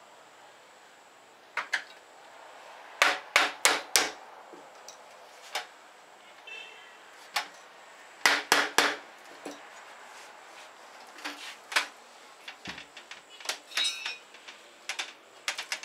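Sharp knocks and taps on an aluminium window frame as it is assembled, some in quick runs of about four strikes and others single, with a dull thump and a short metallic rattle near the end.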